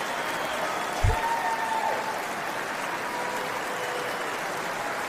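Crowd applauding steadily, with voices calling out over it and one short thump about a second in.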